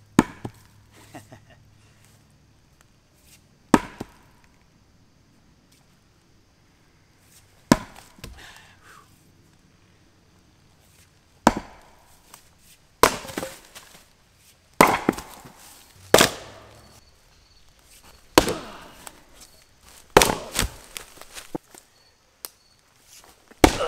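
An axe chopping into a log round: about ten sharp blows a few seconds apart, coming faster in the second half.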